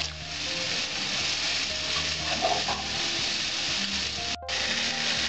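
Water being poured into a hot pot of cooking dal, with a steady sizzling hiss. The sound cuts out for an instant near the end.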